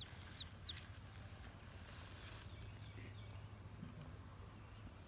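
Three quick, high, falling peeps from a day-old call duckling within the first second, then only a faint steady low hum.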